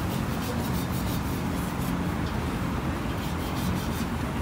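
Steady low hum and din of a street-food stall, with light clicks and scrapes of metal tongs turning grilled king oyster mushrooms on the grill rack.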